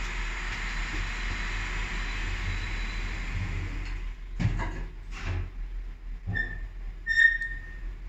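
Techwind glass lift car travelling with a steady hum and faint whine, which stops about four seconds in as the car arrives. Two or three clunks follow, then a few short electronic beeps.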